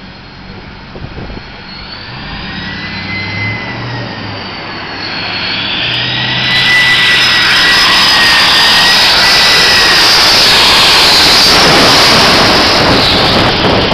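Boeing 747 airliner's four jet engines on low final approach, the noise growing steadily louder for the first half and then staying very loud as it passes just overhead. A high, slightly wavering whine rides over the rushing engine noise.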